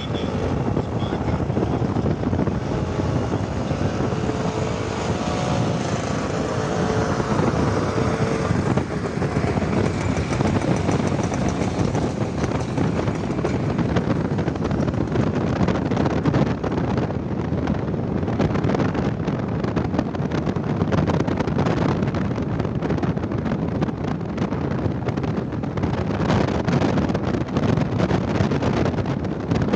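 Wind rushing over the microphone with engine and road noise from a two-wheeler riding steadily along a road.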